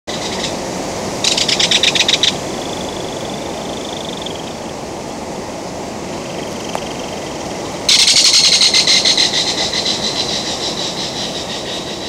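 A bird's rapid rattling call: a short rattle about a second in, then a longer one starting about eight seconds in that fades away, over a steady low rushing background. Between the rattles a thin high tone holds for about a second and a half.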